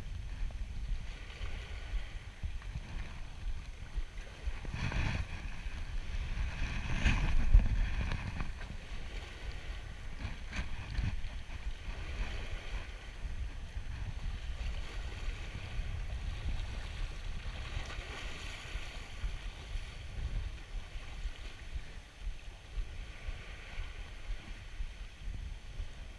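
Wind buffeting the microphone over small waves washing against a rocky shore, with louder surges about five and seven seconds in.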